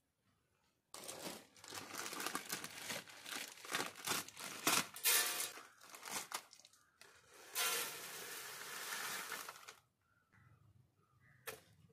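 Plastic food packet crinkling as it is handled and cut open, then its white contents poured out onto a steel plate in a steady rushing hiss for a couple of seconds near the end.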